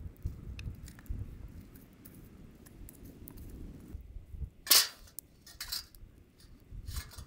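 Driftwood campfire crackling with scattered pops over a low rumble, then a wire grill grate clanks down onto the fire about two-thirds of the way in, the loudest sound, followed by a couple of lighter metal clinks.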